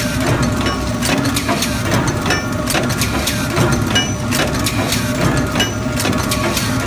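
Induction forging machinery running: a steady low rumble with irregular metallic clanks and knocks throughout.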